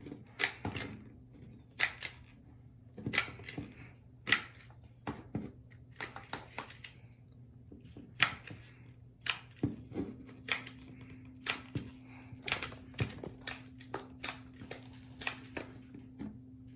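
Irregular sharp clicks and taps, often a second or less apart, from a hot glue gun being worked to glue down a floor-heating sensor, over a faint steady low hum.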